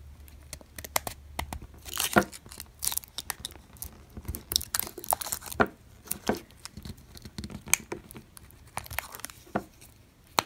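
Plastic case of an iRobot Braava Jet battery pack being pried apart at its seam with fingernails: irregular clicks, creaks and crackles as the snap clips strain, loudest about two seconds in and again around the middle.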